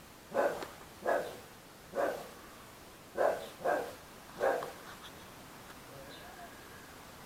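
A dog barking: six short single barks over about four and a half seconds, then it stops.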